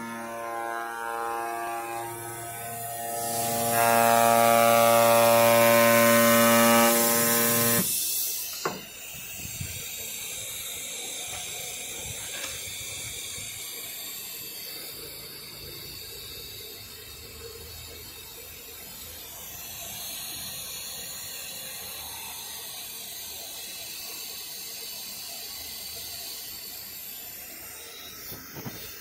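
Pneumatic oscillating knife on a CNC cutting machine running: a steady hum with a loud air hiss over it. Both cut off suddenly about eight seconds in, followed by a click and then a quieter stretch of low steady background noise.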